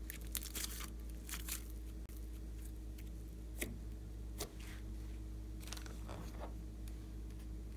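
Thick slime squeezed and pressed flat by hand, giving irregular small sticky pops and crackles over a steady low hum.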